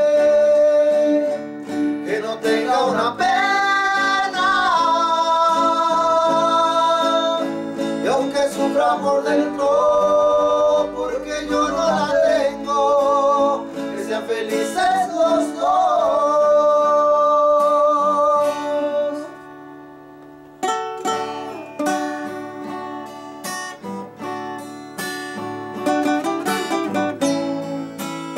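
Men singing a slow song with vibrato to the accompaniment of two acoustic guitars, one of them a nylon-string classical guitar. About twenty seconds in, the singing stops and the classical guitar carries on alone with a picked instrumental passage.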